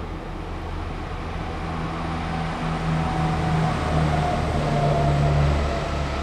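Diesel locomotive engine running with a steady low hum. It grows louder from about two seconds in, with a stronger low tone, then drops back near the end.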